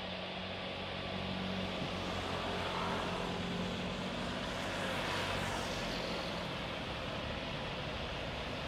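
Jet airliner passing on the runway: its engine rush swells to a peak about five seconds in, then eases off.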